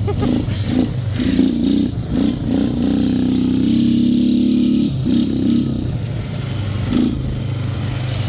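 Outlander 850 ATV's V-twin engine running after repairs. It is revved unevenly and held at a steady higher speed for about two seconds in the middle.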